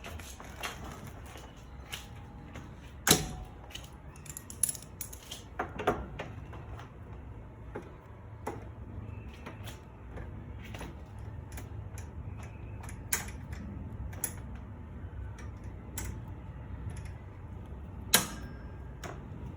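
Irregular metallic clicks and clanks of garage door hardware being worked by hand while the cable and rollers are put back in place, with two sharper knocks about three seconds in and near the end.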